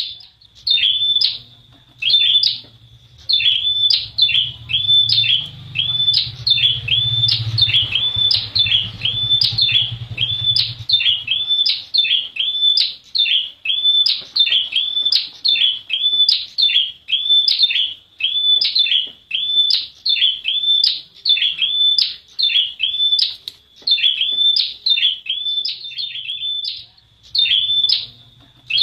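A caged prenjak wulung, a small prinia-type warbler, calling a sharp, high chirp again and again at about two notes a second, with only short pauses near the start.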